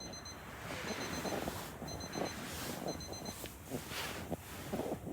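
An electronic alarm beeping: four bursts of rapid high pips, about one burst a second, stopping after about three and a half seconds. Under it run a steady hiss and some rustling and handling sounds.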